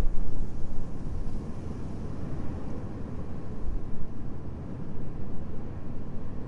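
Low rumbling wind gusting, rising and falling unevenly, strongest in the first second.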